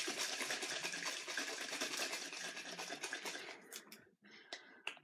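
A bottle of Avon oil-infused micellar water being shaken hard, the liquid inside sloshing in a fast, continuous rattle to mix the oil and water layers. It stops about three and a half seconds in, followed by a few light clicks.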